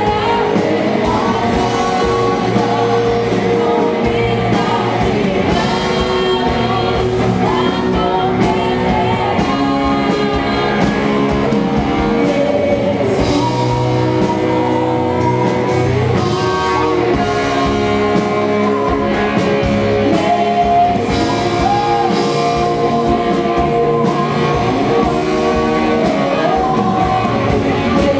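A worship song played by a band with singing and guitar, running steadily throughout.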